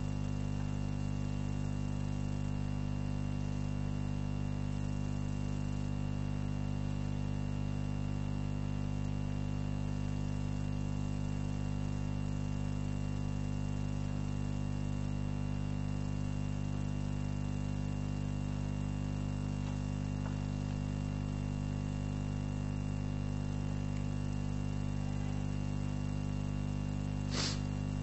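Steady electrical mains hum with a buzz of many overtones, unchanging throughout, and one short click near the end.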